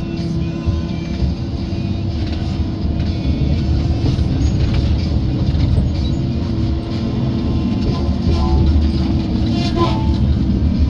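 Tigercat tracked feller buncher's diesel engine and hydraulics running steadily under load, heard from inside the cab, with a deep rumble and a constant hum. A few short sharp cracks come near the end.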